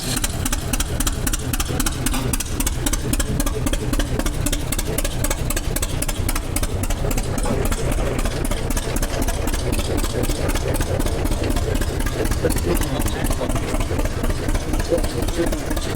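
1939 John Deere A's two-cylinder engine idling steadily with an even popping exhaust beat.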